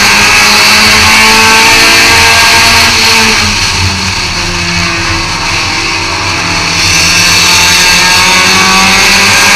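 Race car engine heard from inside the car, running hard under throttle, easing off about three and a half seconds in and coming back up to full power about three seconds later.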